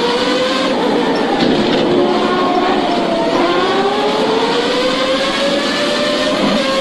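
Formula One car engines at high revs, with no commentary. The pitch drops about three seconds in, then climbs steadily as the cars accelerate.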